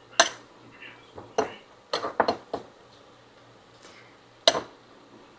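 A fork clinking against a glass bowl while whisking egg yolks and grated cheese. Several sharp clinks come at uneven intervals, the loudest just after the start and one near the end.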